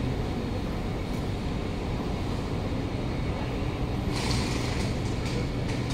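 Steady low hum of a stationary Kawasaki Nippon Sharyo C751B metro train's onboard equipment, heard inside the carriage with the doors open at the platform, with a brief hiss about four seconds in.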